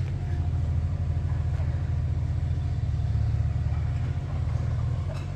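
Excavator's diesel engine running steadily nearby, a continuous low rumble.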